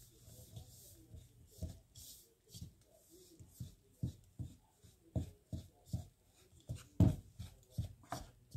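A utensil stirring and scraping a flour dough mixture in a plastic bowl as ice water is worked in. It makes a quick run of short knocks and scrapes, about two or three a second, with the loudest toward the end.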